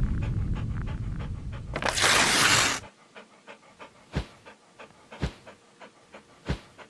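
Intro sound effects: a low rumble fades and ends in a loud whoosh about two seconds in. Then a dog pants in short, quiet breaths, with three louder puffs.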